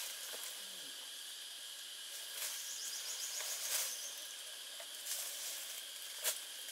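Steady insect drone, with a short rapid insect trill about three seconds in. Scattered rustles and a sharp click near the end.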